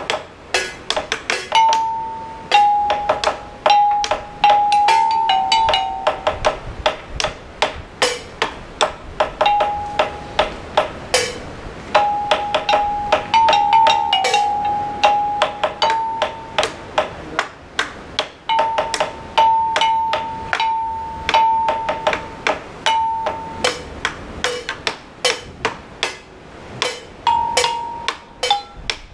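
Music: a melody of short, bell-like struck notes stepping up and down, over a steady run of sharp percussive clicks.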